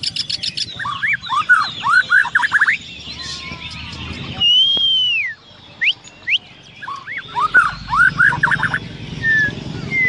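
White-rumped shama singing: fast runs of sweeping whistled notes, a long arched whistle about halfway through, then another quick run of notes near the end.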